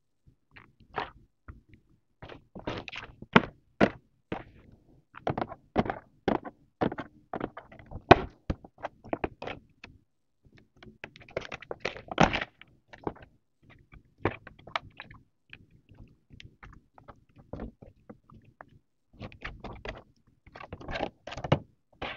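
Hands handling small baby items and their packaging: a run of irregular soft knocks, taps and rustles, with a denser stretch of plastic-bag crinkling about halfway through.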